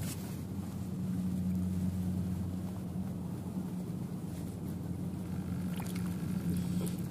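An engine running with a steady low hum that does not change.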